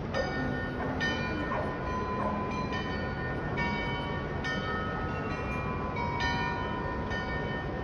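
The Munich New Town Hall Glockenspiel's tower bells playing a slow tune, about one struck note a second at changing pitches, each ringing on into the next, over steady city background noise.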